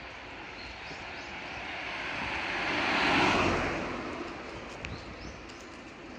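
A car passing close by on the road. Its tyre and engine noise swells, is loudest about three seconds in, then fades away.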